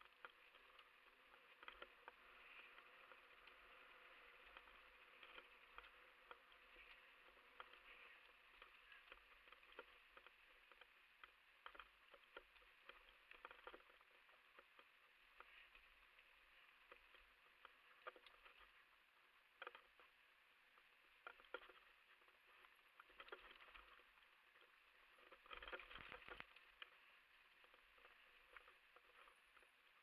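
Faint rattling and knocking of a mountain bike rolling down a rough dirt trail, with a louder cluster of jolts a few seconds before the end.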